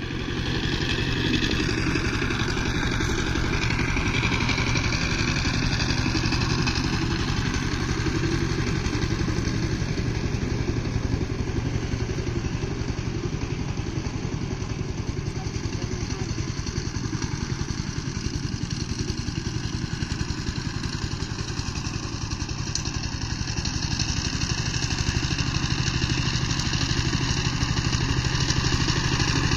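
Two-wheel power tiller's single-cylinder diesel engine running steadily under load while its rotary blades till dry soil, getting louder near the end as the tiller comes closer.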